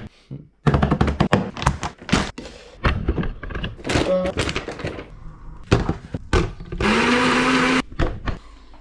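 Kitchen clatter: a spoon and containers knocking and clinking in quick short strokes. Near the end a small electric blender runs for about a second, its motor hum rising in pitch as it spins up.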